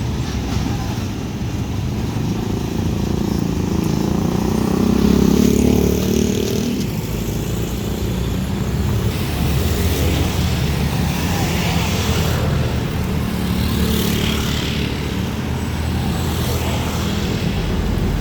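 Road traffic with heavy trucks' diesel engines running and passing close by; one vehicle grows louder about four to six seconds in.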